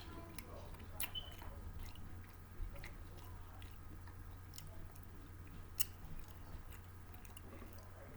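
A person chewing and biting into crunchy snack food close to the microphone, with scattered sharp crunches. A steady low electrical hum runs underneath.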